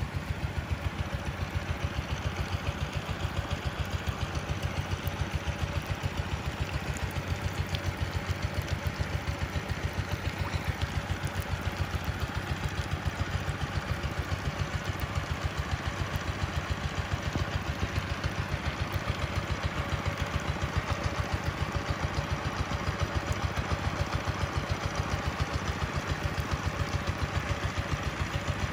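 An engine running steadily at constant speed, with an even, rapid chugging pulse.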